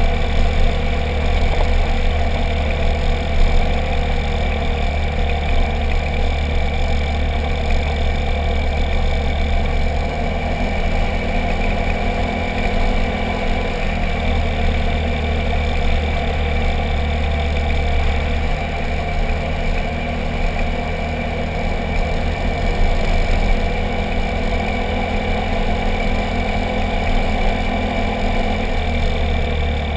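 Motorcycle being ridden along a paved road: its engine running steadily under a low rumble of wind and road noise at the front-wheel camera mount, the drone shifting a few times as the speed changes.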